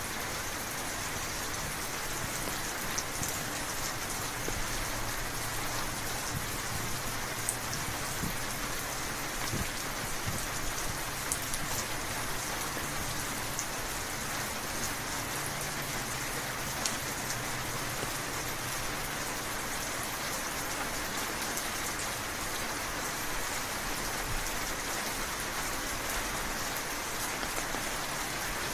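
Steady rainfall, an even hiss dotted with scattered sharp drop taps.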